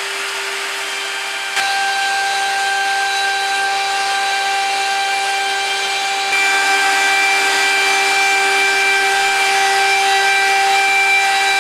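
Electric plunge router running at speed and cutting a 6 mm rebate along the edge of a chipboard board, a steady high whine. It grows louder about a second and a half in and again about six seconds in.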